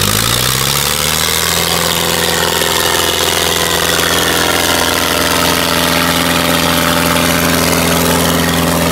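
Tractor diesel engines, a modified Powertrac Euro 55 among them, rev up over the first second and a half and then hold at a high, steady speed under full load as the chained tractors pull against each other in a tug-of-war.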